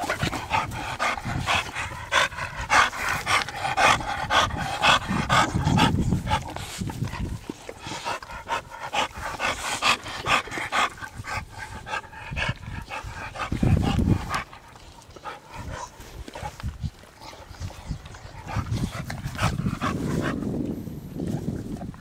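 American bully dog panting close to the microphone in quick, even breaths. A few low rumbles come through, the loudest about two-thirds of the way through.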